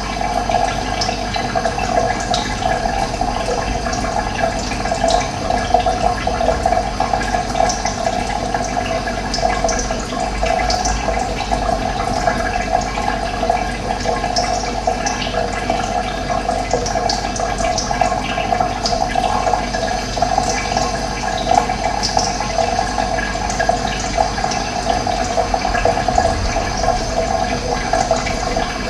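Running water rushing steadily, with short bird calls scattered through it.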